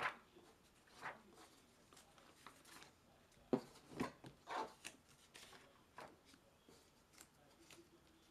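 Sketchbook pages being turned and handled: faint paper rustles and flaps, with a cluster of louder ones near the middle.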